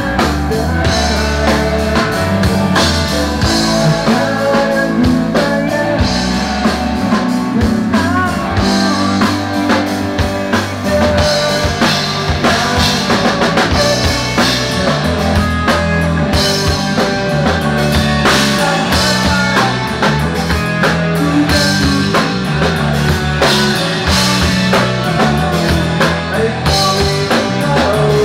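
Loud rock music from a full band: drum kit, electric guitar and a bass line moving through held notes.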